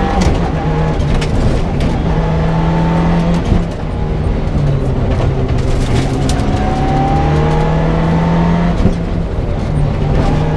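Mitsubishi Lancer Evo 6 rally car's turbocharged 2.0-litre four-cylinder engine heard from inside the cabin at full stage pace, revving up through the gears with a gearshift about three and a half seconds in and another near nine seconds. Sharp clicks sound here and there over the engine.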